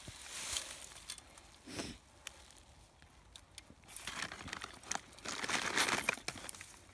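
Plastic pellet bag crinkling as it is handled, loudest in a longer stretch about two-thirds of the way through, with a few light clicks.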